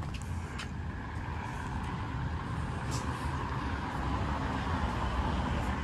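Road traffic passing on the street below, a steady rumble that slowly swells toward the end.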